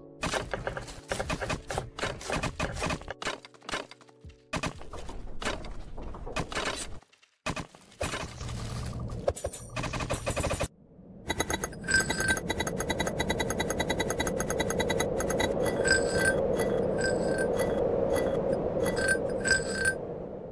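Animation sound effects: a string of sharp clicks and clinks with brief pauses, then from about eleven seconds in a dense, fast clatter with short ringing tones over a steady hum.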